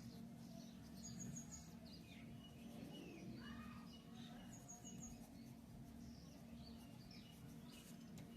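Faint birds chirping in the background over a low, steady hum. A quick run of four high notes comes about a second in and again around the middle.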